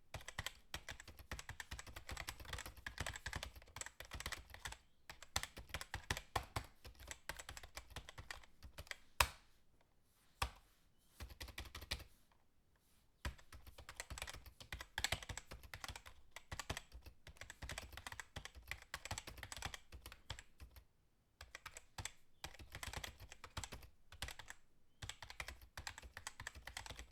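Typing on a computer keyboard: fast runs of key clicks broken by a few short pauses, with one louder clack about nine seconds in.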